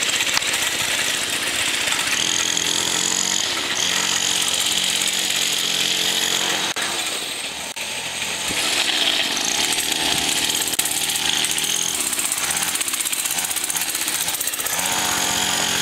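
Small 50cc pocket dirt bike engine running, its pitch rising and falling with the throttle. It dips in loudness briefly about halfway through, then comes back up.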